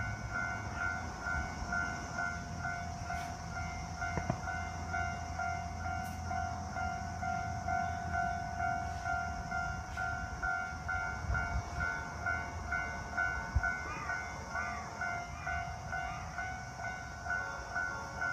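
Japanese railway level-crossing alarm bell ringing, a fast, even, repeating ding over a low rumble, warning of an approaching train.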